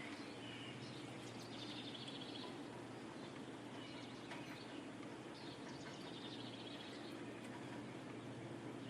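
Quiet background ambience: a steady low hum with short, high chirping trills that come several times, about 1.5, 4, 6 and 7 seconds in.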